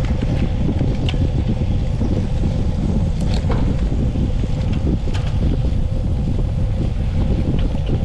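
Wind rumbling steadily on the microphone, with a faint steady hum and a few light clicks.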